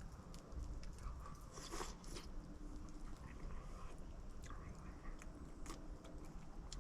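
A person eating a spoonful of campfire soup: faint chewing and biting with scattered small clicks.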